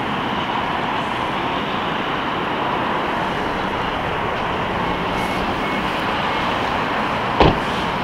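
Steady, even hum of a 2021 Mazda 6's 2.0-litre four-cylinder petrol engine running at idle, with one sharp click about seven and a half seconds in.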